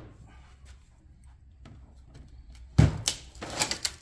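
Faint handling noise, then a heavy clunk about three seconds in followed by a few sharper knocks: a golf cart motor's armature being set down on the workbench.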